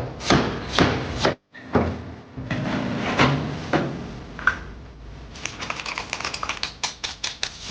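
Kitchen work sounds: scattered knocks, taps and rubbing of utensils and wood, ending in a fast run of light taps several times a second.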